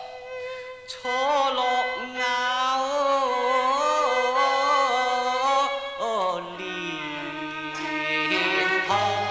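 Cantonese opera singing: a male voice sings a slow, ornamented, wavering line with instrumental accompaniment. About six seconds in, the melody drops to a lower, steadier pitch.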